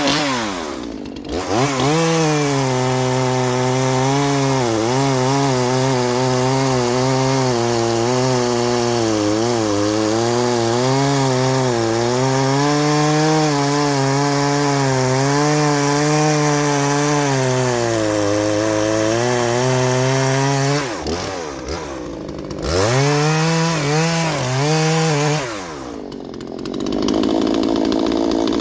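Husqvarna 236 X-Torq two-stroke chainsaw cutting through a hardwood log, its engine held down under load with the pitch sagging and wavering as the chain bites. About two-thirds of the way through it comes out of the cut and revs. It bites again briefly, then runs up to a high free rev near the end.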